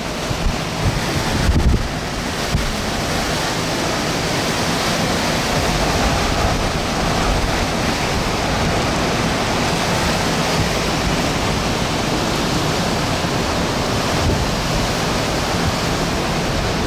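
Hurricane wind buffeting the microphone: a steady, loud rush with a few stronger gusts in the first couple of seconds.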